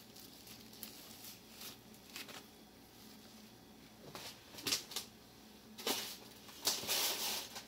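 Crinkling and rustling from kitchen things being handled: light scattered rustles, then louder crinkly bursts in the second half.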